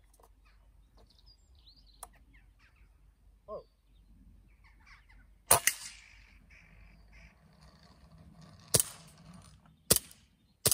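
A PCP air rifle fires once about five and a half seconds in, a sudden crack followed at once by a second crack. Then air-pistol shots come three times about a second apart near the end, with faint bird calls in the background.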